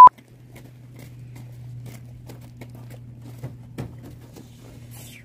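A short, very loud single beep at the start, then a steady low hum with scattered faint taps and knocks.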